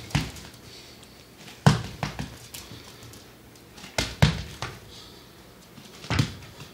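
A handful of sharp knocks and thumps, spaced a second or two apart, as a wire fox terrier puppy pounces and scrabbles on a hardwood floor while playing.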